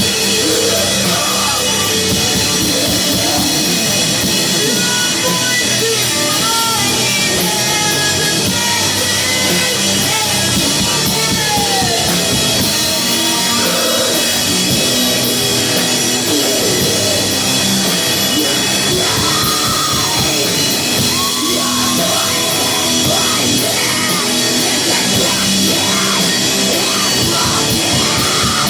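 Live heavy metal band playing loud and without pause: drum kit, bass and amplified guitars.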